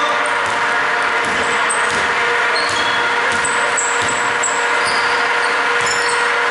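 A steady machine-like hum fills the gym, while basketball sneakers squeak briefly on the hardwood court several times and a dribbled basketball knocks faintly.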